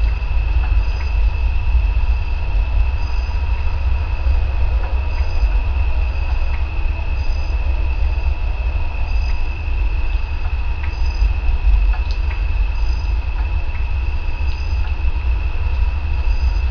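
Steady background noise: a strong low rumble and hiss with a constant high-pitched whine, short faint high chirps every second or two and a few faint clicks.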